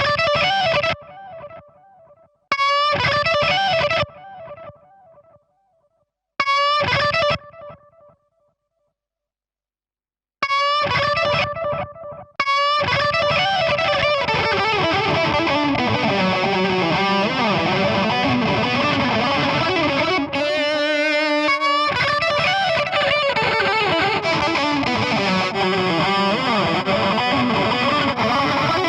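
Distorted electric lead guitar played through the Brainworx Diezel VH4 amp-sim plugin: short phrases of held notes with wide vibrato, broken by pauses and a brief silence, then from about twelve seconds in a continuous lead passage with fuller low end underneath.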